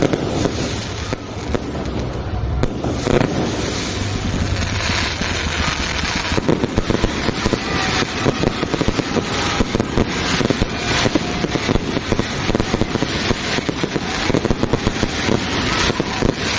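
Fireworks display going off without pause: a dense run of sharp bangs and crackles that grows busier about six seconds in.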